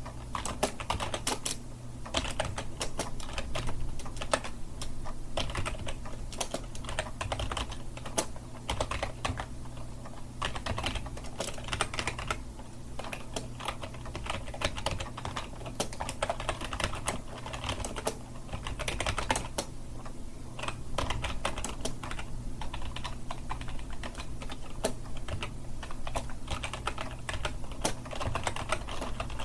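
Steady fast typing on a computer keyboard, keys clicking irregularly several times a second, over a faint low hum.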